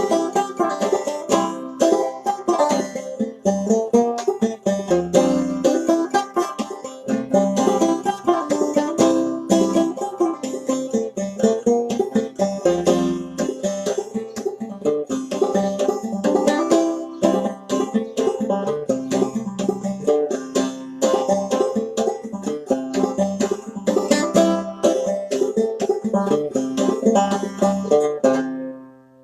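Solo clawhammer-style banjo playing a traditional old-time fiddle tune as an instrumental, a quick, steady stream of plucked and brushed notes. The tune ends near the end, with the last notes left ringing briefly.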